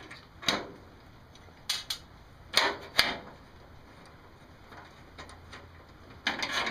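Short metallic clicks and knocks of steel screws and a steel nut plate being handled against a steel hinge mount: a single sharp knock about half a second in, pairs of knocks around two and three seconds, and a quick cluster of clicks near the end.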